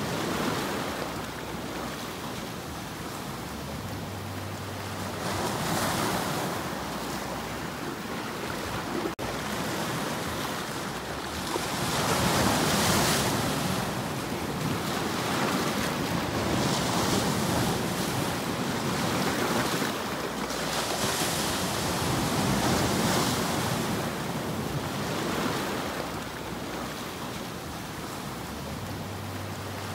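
Sea waves breaking and washing over shore rocks, surging and easing every few seconds.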